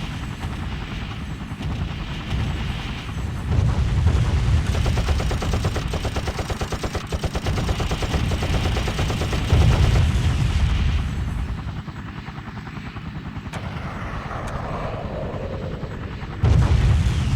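Battle sound effect: rapid machine-gun fire over a helicopter, with heavy low booms three times. A falling whistle comes shortly before the end.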